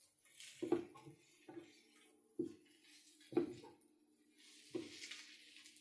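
Wooden spatula stirring sliced shiitake mushrooms, shallots and garlic in a nonstick frying pan: about five short scrape-and-knock strokes roughly a second apart, over faint frying sizzle and a steady low hum.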